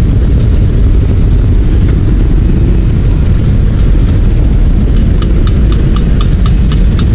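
Steady low rumble of a motorcycle engine idling close by, with road traffic. About five seconds in, a quick run of light, evenly spaced ticks starts, about four a second.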